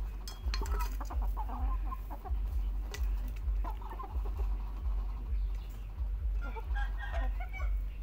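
Chickens clucking in short runs of calls, three times: near the start, around halfway and near the end, with a few sharp taps as they peck at the feed containers. A low, uneven rumble runs underneath.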